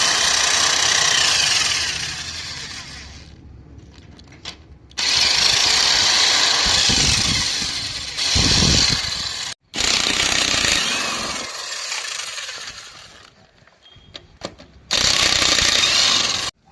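Pneumatic impact wrench run in four long bursts, each starting abruptly and fading before it stops, loosening fasteners on the engine.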